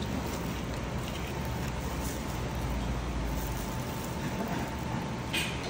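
Steady low background rumble with a faint steady tone, and one short sharp sound near the end.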